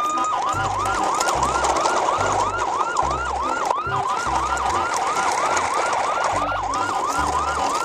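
Electronic siren sound effect: a rising wail that switches just after the start into a fast yelp of about three sweeps a second, over a beat with a low stepping bass.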